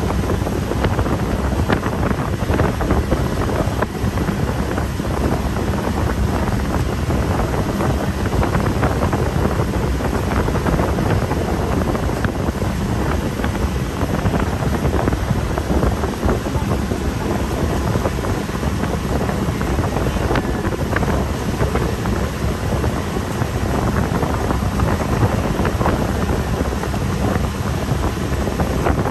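Heavy wind buffeting the microphone over the steady drone of a motorboat's engine and water rushing past the hull.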